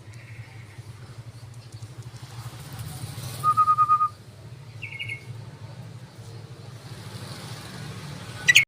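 Yellow-vented bulbul calls: short, rapid trills of evenly repeated notes, the loudest a little past halfway, a shorter, higher trill just after it, and a sharp call right at the end. A steady low hum runs underneath.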